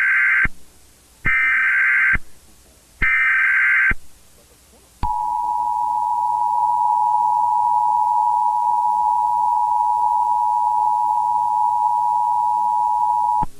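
Emergency Alert System SAME header: three data bursts of about a second each, followed about a second later by the two-tone EAS attention signal, a steady dual tone held for about eight and a half seconds that cuts off sharply.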